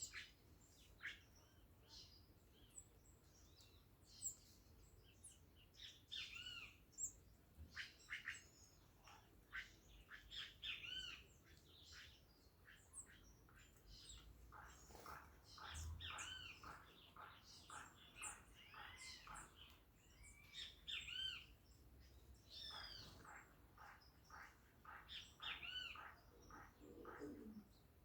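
A flock of small birds chirping and calling, many short arched chirps overlapping one another, faint throughout.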